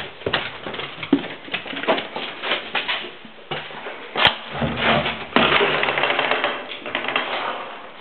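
Footsteps on bare floors, heard as irregular knocks and clicks, with one sharp click about four seconds in and a stretch of rustling noise in the second half.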